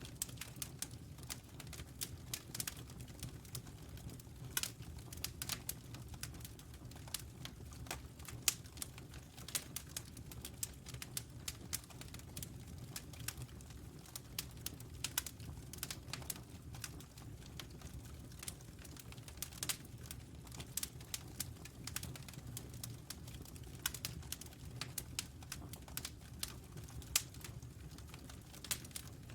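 Wood fire crackling: many irregular small snaps and pops over a steady low rumble.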